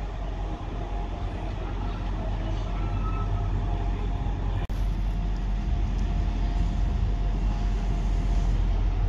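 Class 175 diesel multiple unit running slowly into the platform: a steady low diesel engine rumble with a faint thin whine above it, getting slightly louder.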